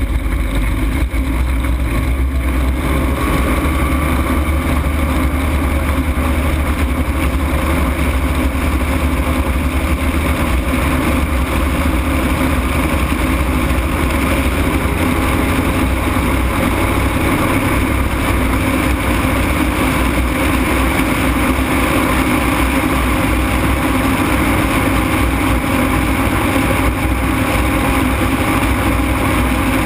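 Ultralight aircraft's engine and propeller running steadily and loudly close to the microphone during the takeoff roll, with a constant drone and no change in pitch.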